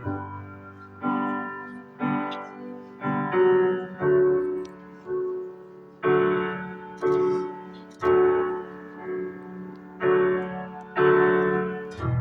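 Piano playing an unhurried introduction: chords struck about once a second, each ringing out and fading before the next.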